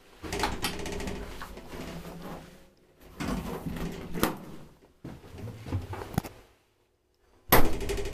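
Old Kone traction elevator car travelling down one floor, heard from inside the car: a steady low motor hum with mechanical clicks and rattles, then a loud clunk near the end as the car reaches the basement landing.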